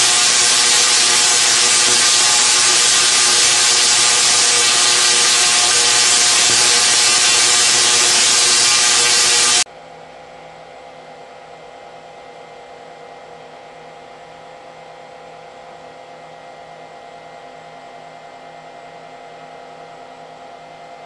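Solid-state interrupted spark gap (SIDAC-driven) Tesla coil discharging: a loud, harsh buzzing crackle of sparks. It cuts off suddenly about ten seconds in, leaving a much quieter steady electrical hum.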